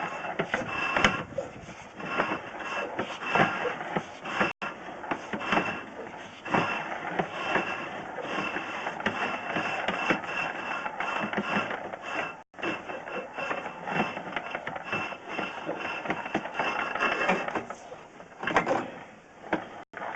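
Irregular mechanical clicking and rattling that goes on throughout, broken by three brief, sudden drop-outs.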